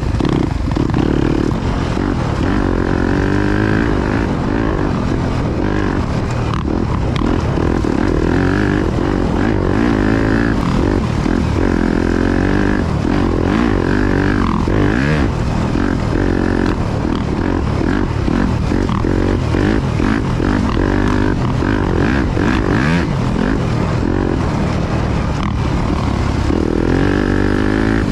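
Dirt bike engine being ridden hard along a trail, its pitch rising and falling every few seconds as the throttle is opened and closed.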